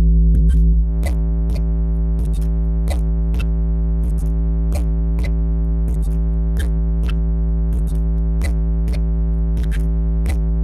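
Electronic dance music played loud through a large sound system during a sound check: one long, deep synthesizer bass note held throughout, with drum-machine ticks over it, starting and cutting off abruptly.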